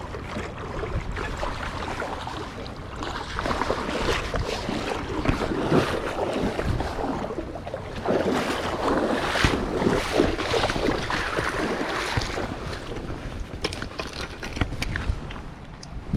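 Wind buffeting the microphone in irregular gusts over the sound of rushing water.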